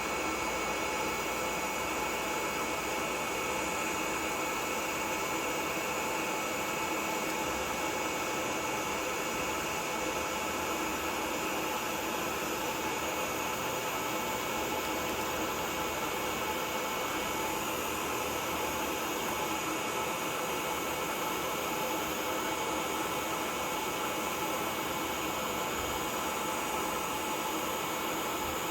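TIG welding arc on a Primeweld TIG225X burning steadily on titanium exhaust tubing: a constant, even hiss with a faint steady whine.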